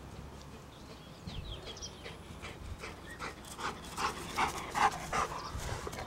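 A young black gundog panting in quick, regular breaths, about two or three a second, around a retrieve dummy held in its mouth. The breathing grows louder over the last few seconds as the dog comes right up close.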